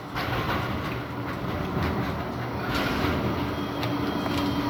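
Bombardier Flexity 2 tram approaching along street-running track, its wheels running on the rails, with a steady whine joining about three seconds in.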